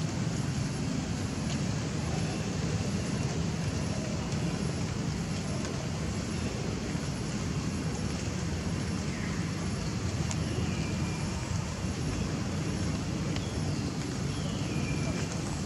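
Steady low outdoor rumble, even throughout, with a few faint short high whistles over it.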